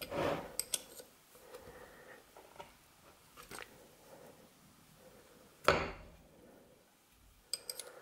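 Small metal clinks and taps of a wrench working a nut on a gear inside a dividing head's cast-iron housing: a few scattered strikes, one louder knock about two-thirds of the way through, and a quick run of clicks near the end.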